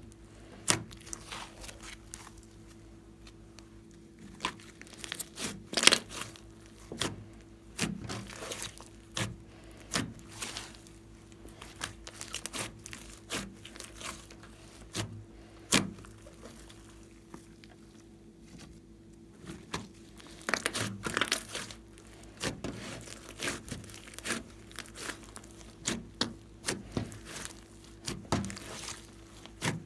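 Hands squeezing, pressing and stretching a large mass of glossy slime, giving irregular pops and crackles that come in clusters, with a calmer stretch midway.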